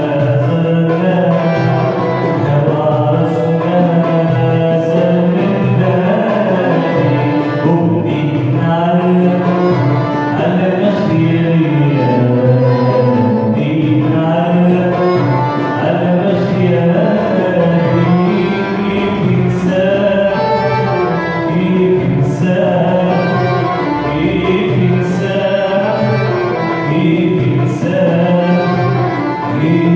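A Moroccan song played live by a small ensemble of violin, accordion, oud and hand drum, with a man singing over the instruments.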